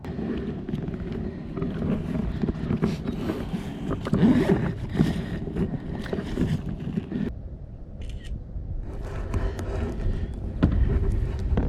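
Close-up handling noise: irregular scraping, rustling and sharp clicks over a low rumble, dropping away briefly about seven seconds in.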